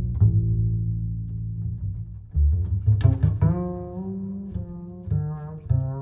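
Instrumental background music: a deep bass line of separate notes, joined about halfway by a higher melody with a wavering pitch.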